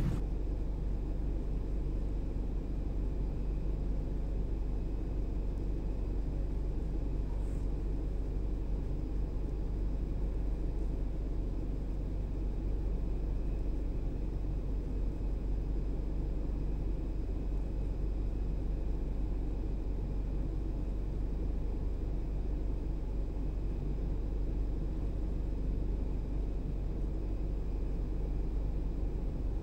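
Steady low outdoor rumble with a few faint steady tones above it and no distinct events.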